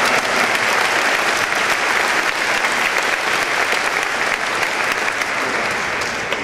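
Audience applauding, a dense patter of many hands clapping that slowly tapers off toward the end.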